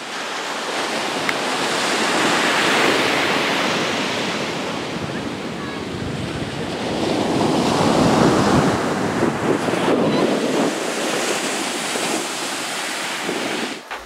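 Ocean surf breaking and washing up the sand, swelling twice, with wind buffeting the microphone.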